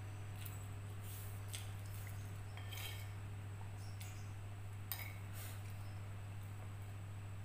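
A metal spoon scraping and clinking against a plate of fried noodles and rice, a handful of short light clicks spread through, over a steady low hum.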